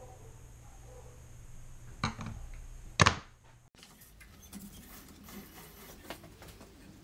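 Two sharp metallic knocks about a second apart, the second louder with a short ring, as steel is handled. Then faint clicks and rubbing from hands on an idle belt grinder.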